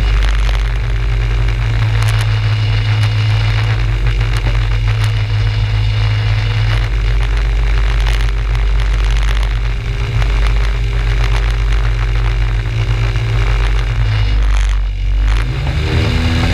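Rotax 582 two-stroke twin engine of a Skyranger ultralight running steadily at low power with the propeller turning, and a rushing noise of propeller wash over the microphone. Its note shifts in the last second or two.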